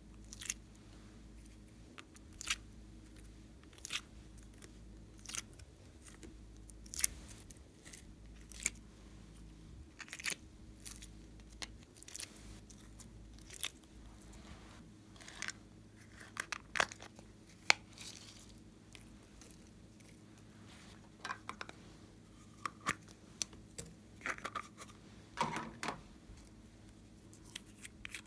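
Soft coloured clay being pulled apart by hand and pressed onto slime: short, sharp sticky tearing crackles, about one every one and a half seconds at first, then in more irregular clusters.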